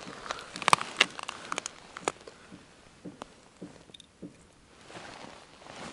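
Hands handling an ice-fishing tip-up at the hole: a quick run of sharp clicks and knocks about a second in, then a few scattered taps, with a soft hiss rising near the end.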